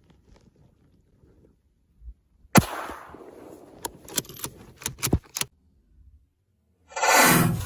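A single gunshot about two and a half seconds in, ringing off afterwards, followed by a series of sharp clicks and knocks. A loud swell of noise comes near the end.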